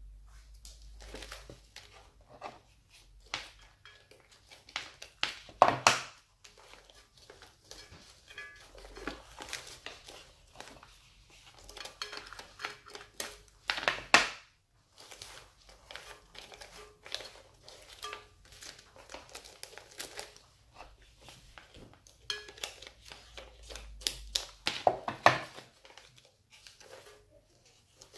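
Shiny silver wrapping paper crinkling and rustling as hands press and fold it around a cylindrical container. It comes in irregular bursts, with three louder crackles spread through.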